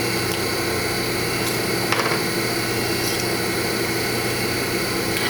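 Test grinder's electric motor running at a steady speed with an even hum, driving the newly assembled Demco spindle; a faint click sounds about two seconds in.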